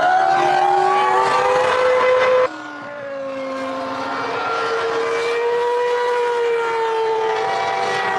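Formula One V10 engines running, their note rising over the first couple of seconds. An abrupt cut follows, then a steadier engine note that drifts slowly up and down.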